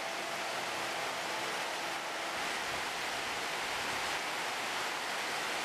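A steady, even hiss of noise, strongest in the upper middle range, with a soft held musical tone fading out about two seconds in.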